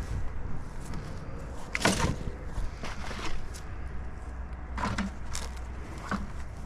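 Scattered crunches and rustles of litter and brush being stepped through and picked up, a few sharp ones about two seconds in and again near the end, over a steady low rumble.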